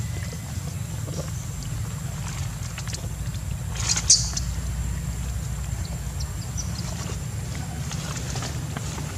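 Long-tailed macaques, with one brief high squeak about four seconds in, over a steady low rumble of wind on the microphone.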